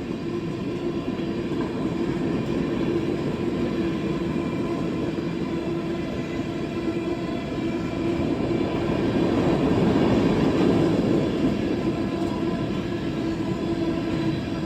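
CSX freight train B523, running empty, rolling steadily past, with a steady tone over the noise of the wheels; it is loudest about ten seconds in.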